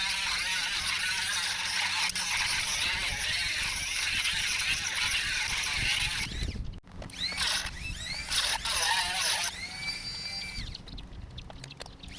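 A small high-speed rotary tool grinding into the steel can of a Molicel P42A 21700 cell, a steady hissing grind. In the second half the motor spins up several times in short rising whines, and once climbs to a high steady whine for about a second.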